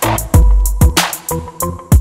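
Background music: an electronic hip-hop track with a steady drum-machine beat of kick drum, snare and quick hi-hats over held synth tones.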